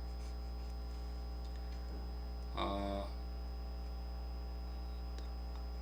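Steady electrical mains hum on the recording, with a short voiced murmur about half a second long midway through.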